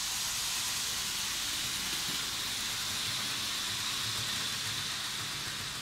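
Märklin HO class 18 steam locomotive (3518) with its Rheingold coaches rolling along metal M-Track: a steady, even hiss of wheels and motor that eases off near the end as the train moves away.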